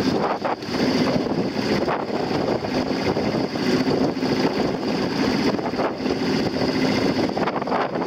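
Strong wind buffeting the microphone in gusts over choppy, wave-tossed water.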